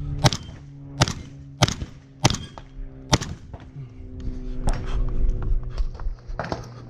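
Five gunshots about two-thirds of a second apart, fired just after the shot timer's start beep, followed by a run of fainter sharp knocks.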